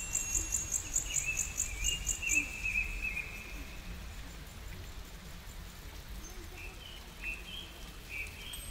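Small songbirds singing among trees, over a steady low rumble of town background noise. A fast, high trill of evenly repeated notes runs for about the first two seconds, with wavering warbled notes around it, and a few short chirps come near the end.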